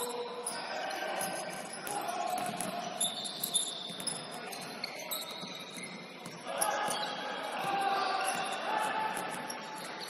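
Basketball being dribbled on a hardwood gym floor, with sneakers squeaking in short high-pitched chirps and players calling out during live play.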